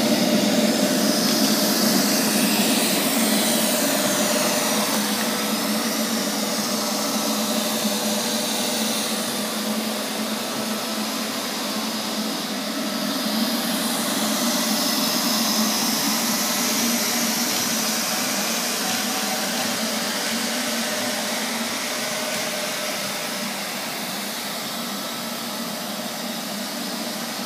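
Neato VX-21 robot vacuum cleaner running steadily, its suction motor and brush giving a continuous whir with a faint steady hum, growing a little fainter in the second half.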